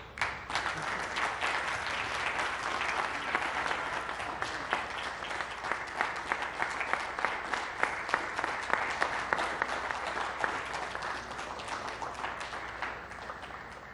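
Applause from a group of people, breaking out suddenly and fading away near the end.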